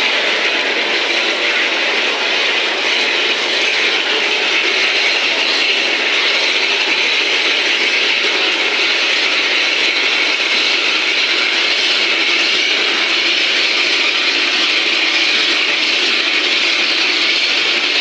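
Steam and hot water blowing out of a wood-fired steam boiler's pipe into a plastic bucket: a loud, steady hiss that does not let up.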